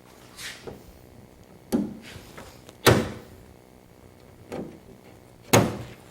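Sharp knocks and clacks as a metal trim-panel clip is pulled back out of its hole in a car's sheet-metal door. Three loud ones stand out, with a couple of softer ones between them.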